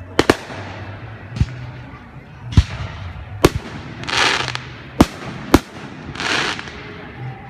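Fireworks display: about seven sharp, separate bangs of aerial shells bursting. Two crackling hisses of about half a second each come about four and six seconds in.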